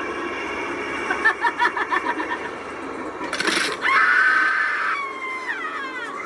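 Halloween prop sound effects: a quick cackling laugh about a second in, a short hiss, then a loud held shriek that slides down in pitch near the end.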